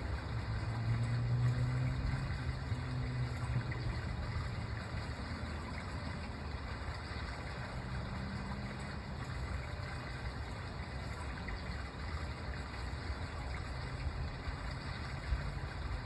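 Outdoor park ambience: a steady low rumble, with a low hum that fades out about four seconds in.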